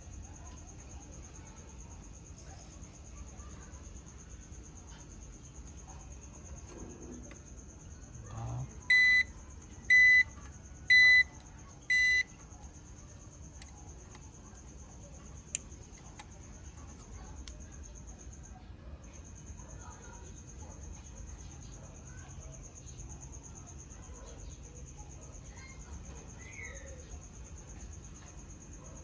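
APC 350 W UPS's internal beeper sounding four short, high beeps about one a second: the UPS's alarm for running on battery power.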